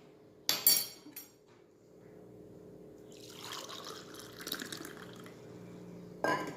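A cup of hot milk being poured into a bowl: a steady stream of liquid that starts about two seconds in and runs for about four seconds. Sharp clinks of the cup come just before the pour, and a knock comes near the end.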